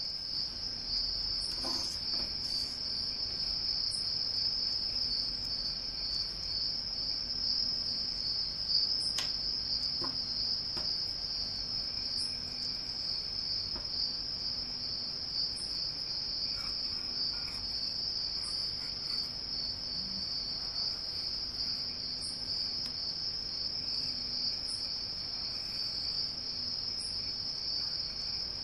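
A steady high-pitched cricket-like trill, unbroken throughout, with a few faint clicks.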